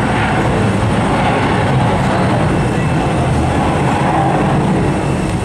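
Jet engines of a Boeing 757-300 airliner at takeoff power as it climbs away: a loud, steady rumble with no breaks.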